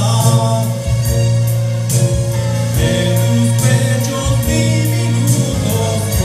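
A man singing a ballad into a microphone over a karaoke backing track.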